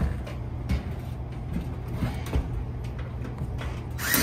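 A cordless drill starts driving a self-tapping metal screw with a rubber washer through the roof drain's flange into the metal roof deck near the end, loud and rattling. Before that, a few light knocks over a low steady rumble.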